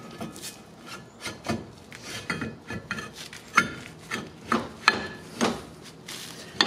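Brake drum on a 2000 Jeep Wrangler TJ scraping and rubbing as it is twisted and pushed by hand over the new brake shoes, in a series of short, irregular scrapes with a few sharper knocks. It is a tight fit and is not yet sliding on freely.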